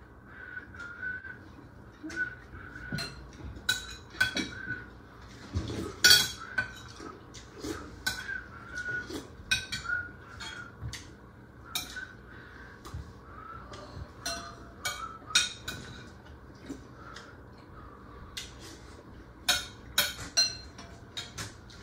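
Cutlery clinking and scraping against plates and bowls during a meal, in scattered, irregular clinks.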